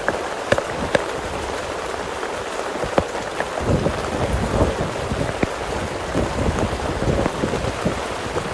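Heavy rain falling steadily on a tent, with a few sharp single drips tapping in the first few seconds; a low, uneven rumble builds in about halfway through.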